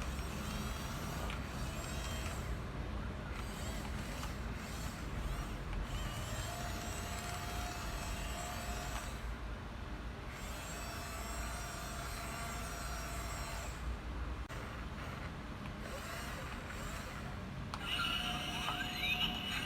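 Radio-controlled toy bulldozer driving: its small electric motors whine, the pitch shifting and the whine coming and going as it moves, over a steady low running noise. A louder, higher-pitched sound sets in near the end.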